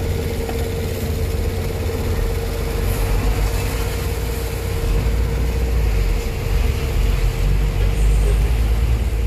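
Diesel truck traffic: a steady low engine rumble heard from inside a slowly moving vehicle as lorries pass close alongside, with a constant hum over it. The rumble grows a little louder about halfway through.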